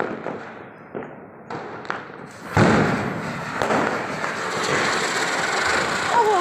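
A ground spinner (chakri) firecracker catching light and spinning on the floor: a sudden start about two and a half seconds in, then a steady hiss of spraying sparks. A few light clicks come before it.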